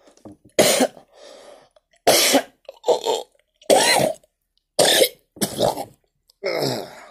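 A man coughing repeatedly: about seven loud coughs spaced half a second to a second apart.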